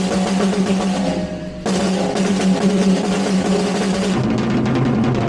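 Acoustic drum kit played with AHEAD signature drumsticks (aluminium-alloy core, polyurethane cover), a fast, dense run of strokes over the drums with the toms ringing. It turns suddenly brighter and louder about a second and a half in.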